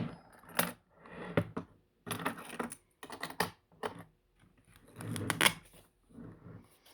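Clicks and rattles of a small plastic precision-screwdriver repair kit being handled and opened, in several short bursts with brief pauses between them.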